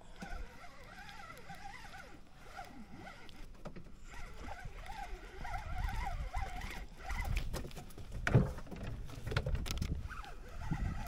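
Handling noise from a fishing rod and spinning reel in a wooden boat: low rumbles and rubbing, with one sharp knock about eight seconds in.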